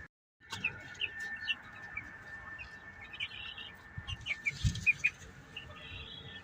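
Young chickens (Leghorn and Plymouth Rock pullets) peeping and chirping in short, scattered calls.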